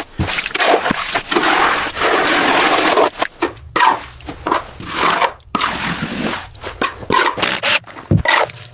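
Steel reinforcement mesh sheets scraping and rubbing as they are moved into place, in irregular strokes of varying length.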